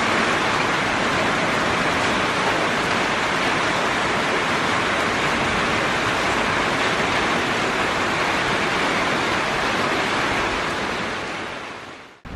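Steady rain falling, an even hiss that fades out near the end.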